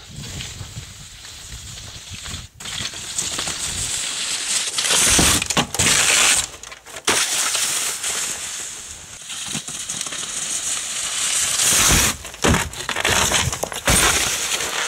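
Crunching and scraping in snow close to the microphone, irregular and rising and falling in level, with several sudden gaps and surges.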